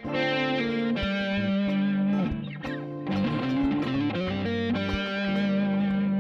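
Background music led by an electric guitar with distortion, including a few sliding, bending notes in the middle.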